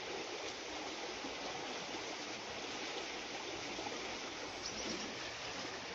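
River in flood rushing steadily, a strong, fast current running past the bank.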